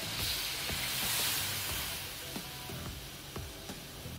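Coconut milk poured into a hot metal wok of simmering fish broth, hissing and sizzling, loudest for the first second or so and then settling. Background music plays underneath.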